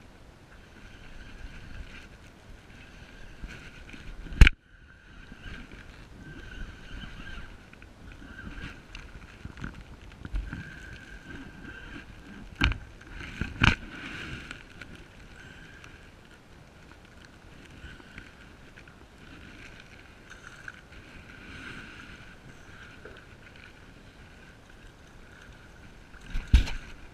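Water lapping against a plastic kayak hull, with wind on the microphone and a faint steady high hum. Sharp knocks break in: one loud knock about four seconds in, two more around the middle and a couple near the end.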